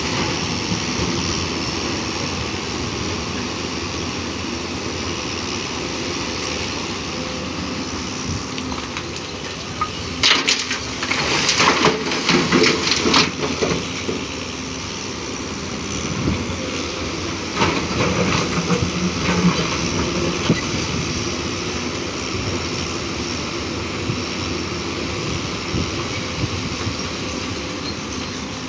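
JCB NXT 225LC M tracked excavator's diesel engine running steadily under load. Two bursts of rock crashing and clattering come about a third and two thirds of the way through, as the bucket digs and dumps blasted stone into a dump truck's steel body.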